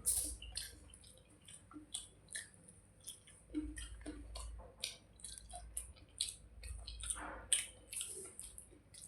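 Close-miked wet chewing and mouth smacks of someone eating panta bhat, cooked rice soaked in water, with many short, irregular sharp clicks.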